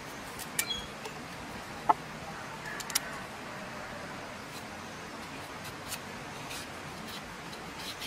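A large knife scraping the skin off a raw carrot: a few short, crisp scrapes and clicks, the loudest about two seconds in, over a steady hiss.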